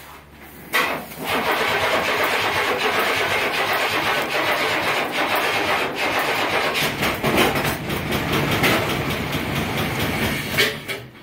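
A newly replaced Chevy V6 in a pickup is started for the first time. About a second in, the engine fires with a sudden loud burst, then runs unevenly for about ten seconds before cutting off abruptly.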